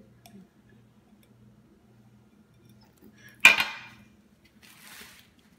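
Quiet for about three seconds, then one sudden sharp clack about three and a half seconds in with a brief ring, a glass cup set down hard on a countertop.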